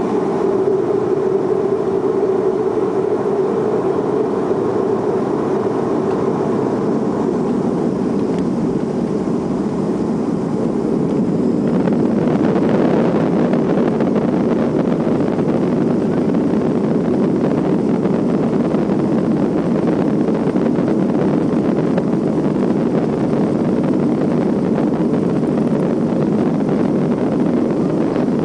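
Boeing 737-300's CFM56 jet engines running at high power during takeoff, a steady engine noise. A hum fades out over the first few seconds, and about twelve seconds in the sound grows a little louder and brighter.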